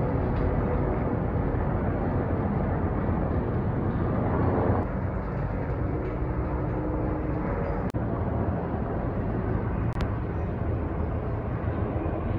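Rotor drone from a large formation of military CH-47 Chinook helicopters and V-22 Ospreys flying overhead, a loud steady low hum with a layered pitch. The sound shifts abruptly about five seconds in and again near eight seconds.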